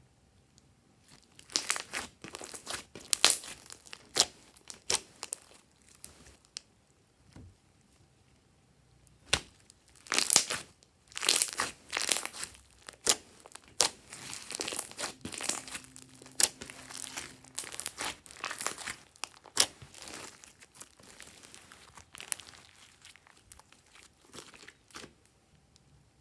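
Glossy slime being squished, pressed and stretched by hand, giving irregular clusters of sharp, sticky crackling clicks. There is a quiet pause in the middle, and the clicks fade to fainter ones near the end.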